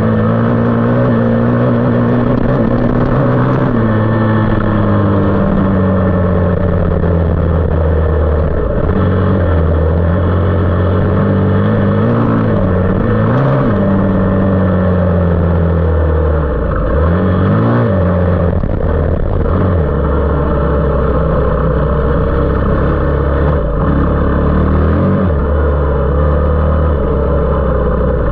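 Engine of a 450 off-road machine being ridden hard, revving up and dropping back through gear changes several times.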